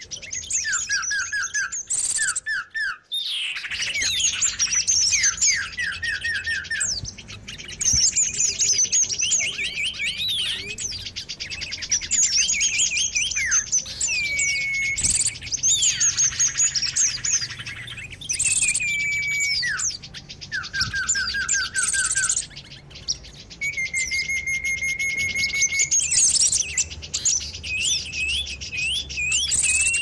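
Many small songbirds calling at once in a noisy, overlapping chorus. It is made of quick runs of short falling whistled notes, high chirps and trills, with one longer held whistle near the end. This is a bird-lure recording of a noisy bird commotion, played to draw wild birds in.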